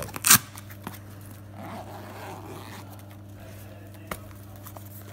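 Fabric camera-style shoulder bag being opened by hand: a short, loud zipper-like rasp about a third of a second in, then softer rustling of the fabric and a single sharp click near the end.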